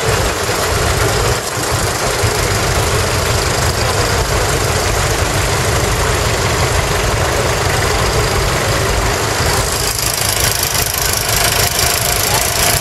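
Vintage farm tractor engines idling: a steady, loud mix of several running at once.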